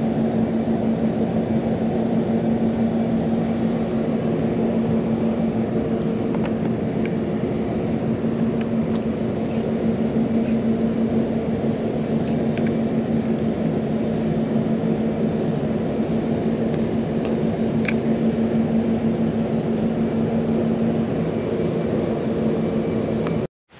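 A motor running steadily, a constant-pitched hum over low rumbling noise; the hum drops out near the end and the sound then cuts off suddenly.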